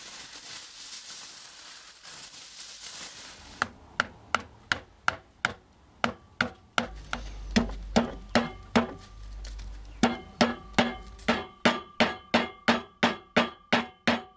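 Aluminium foil crinkling as it is torn and handled, then a mallet tapping foil against a carved wooden lure form over and over, about three strikes a second with a short ring after each, coming a little faster near the end.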